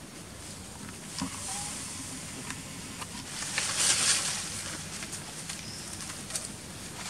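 Leaves and twigs rustling and snapping as a monkey climbs through a tree, with a louder burst of rustling about halfway through and a few sharp clicks over a steady outdoor hiss.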